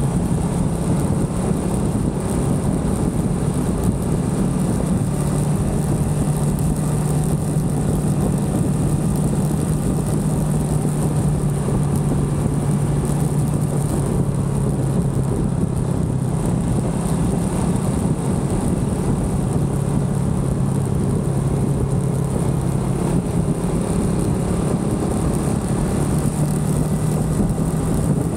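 Motorbike engine running steadily while riding at cruising speed, its low drone shifting slightly in pitch a few times, over a continuous rush of wind and road noise.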